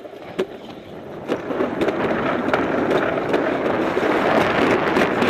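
Summer luge sled sliding and rattling down its track, the rumble of the sled on the track mixed with wind on the microphone growing steadily louder as it picks up speed. A few sharp knocks sound in the first second and a half, as the sled runs over bumps or joints in the track.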